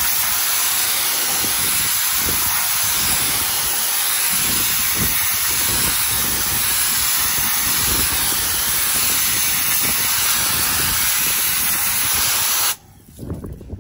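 Pressure washer jet blasting moss off stone paving slabs: a steady, loud hiss of high-pressure water spray that cuts off suddenly near the end when the trigger is released.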